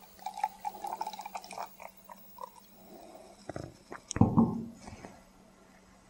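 Beer poured from a glass bottle into a tulip glass, trickling and gurgling with a wavering tone for about two and a half seconds. Then two short dull knocks, about three and a half and four seconds in.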